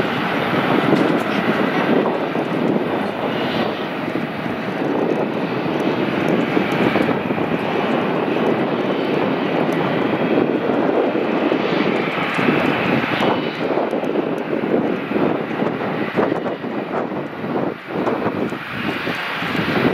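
Boeing 737-800's twin CFM56 jet engines running at low thrust as the airliner taxis and lines up on the runway: a steady rushing jet noise.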